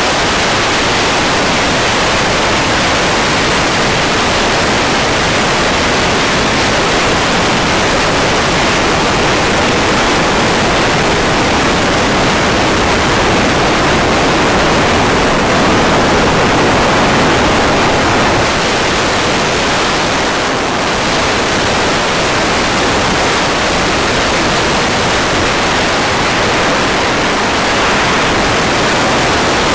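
Steady, even hiss of static, like the empty audio channel of an analog FPV video receiver.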